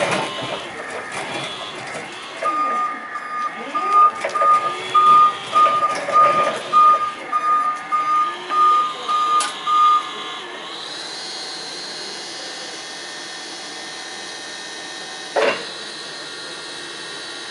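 Bendi B312 electric articulated forklift: its warning beeper sounds in even beeps, a little under two a second, over the rising and falling whine of the electric drive. About ten seconds in the beeping stops and the hydraulic pump motor runs steadily as the mast lifts the forks. A short knock comes near the end.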